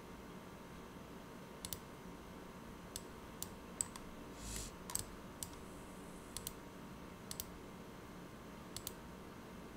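Computer mouse buttons clicking while software menus are worked: about a dozen sharp, separate clicks, several in quick pairs, over a faint steady hum.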